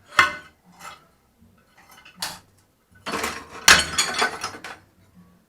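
Broken porcelain pieces of a toilet tank clinking and clattering against each other as they are handled: a clink just after the start, another at about two seconds, then a longer run of clattering from about three seconds to nearly five.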